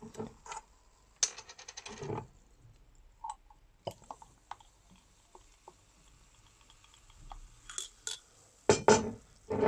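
Blueberry soda poured from a glass ramune bottle into a paper cup, with small light clinks of glass from the marble in the bottle's neck. A brief louder sound comes near the end.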